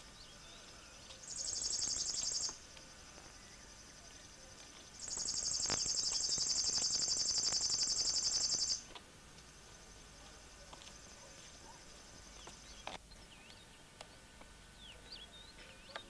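River warbler singing: two bursts of rapid, dry, pulsed high buzzing, a short one about a second in and a longer one of nearly four seconds starting about five seconds in. Faint chirps of other birds are heard between the bursts.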